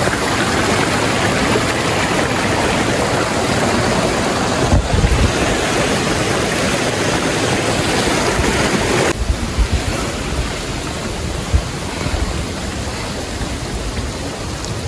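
Steady rush of falling water from a hot-spring waterfall, with low buffeting thumps on the microphone; it drops somewhat about nine seconds in.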